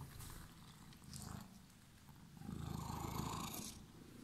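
Calico cat purring, the purr swelling louder for about a second in the second half.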